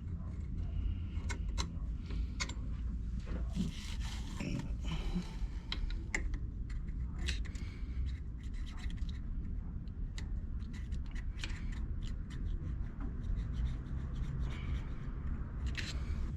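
Irregular scratching and rubbing with scattered small clicks and taps, from hands working parts off a motorcycle handlebar, over a steady low hum.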